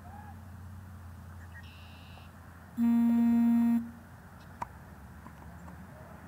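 A loud, steady electronic warning tone from the Zino Mini Pro drone's controller app, lasting about a second, sounding as a red alert message comes up on screen. Underneath is a faint low steady hum.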